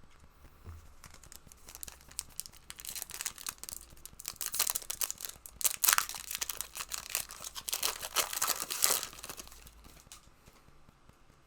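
Trading-card booster pack wrappers being torn open and crinkled: a run of quick crackling rips, busiest in the middle and dying away near the end.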